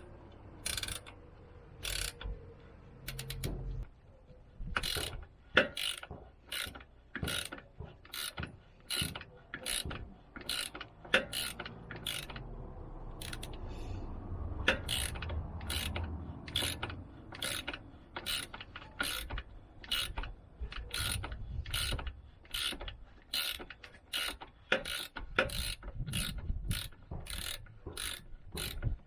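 Hand ratchet wrench clicking in repeated short back-strokes, about one to two a second and getting quicker in the second half, as a suspension bolt is turned.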